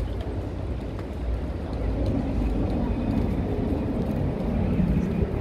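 City street ambience: a steady low rumble of traffic, with indistinct voices in the crowd growing busier after about two seconds.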